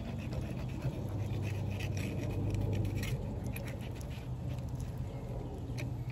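Knife and hand work on a mahi being skinned and filleted: small scraping and clicking sounds over a steady low hum.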